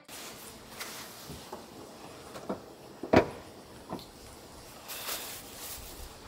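A person shifting about in a car seat under a down sleeping bag: faint rustling and a few light knocks, with one sharper thump about three seconds in.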